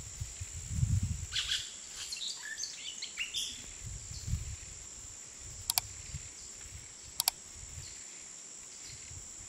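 Outdoor nature ambience with birds chirping: a quick run of calls in the first few seconds, then two sharp double chirps about six and seven seconds in, over a steady high-pitched tone and a low rumble.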